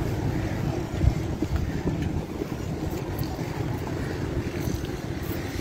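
Low, steady rumble of slow-moving cars along the road, mixed with wind buffeting the microphone, with one brief thump about a second in.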